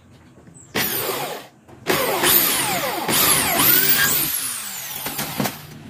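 Electric drill boring a hole into a wooden frame: a short burst, then a longer run whose whine dips and rises in pitch as the bit loads in the wood.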